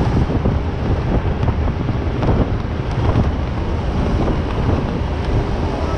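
Heavy wind buffeting the microphone over a steady low rumble, as heard while travelling in an open moving vehicle.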